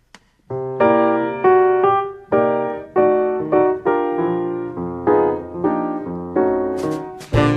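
Piano playing an intro of chords, each one struck and dying away. Just before the end, a fuller accompaniment with bass comes in.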